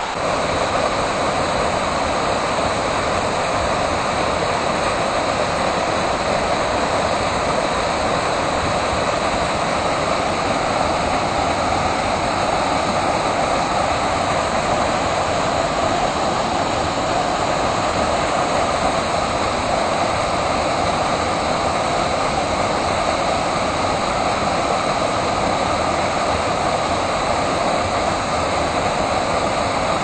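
A waterfall on a mountain creek, water rushing in a loud, steady, even hiss.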